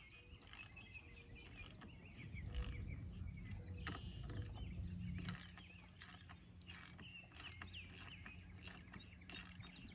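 Stainless hose clamps being tightened by hand on the barb fitting of a submersible well pump: short, irregular metallic clicks, roughly two a second, with birds chirping. A low steady hum comes in about halfway through.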